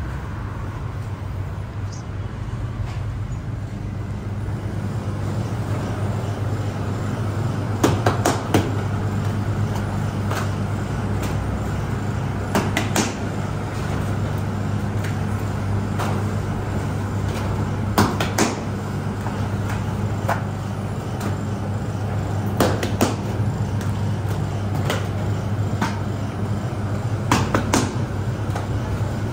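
A steady low machine hum, with sharp knocks every few seconds, often two in quick succession, as dough balls are worked on a floured bakery table.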